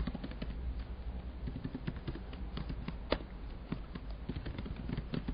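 Typing on a computer keyboard: an irregular run of key clicks, several a second.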